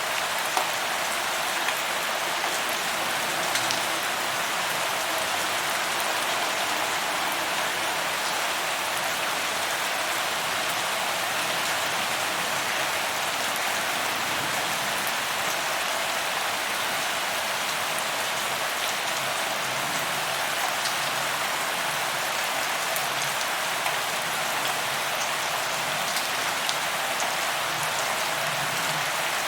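Steady rain falling, an even hiss with scattered small drop ticks throughout.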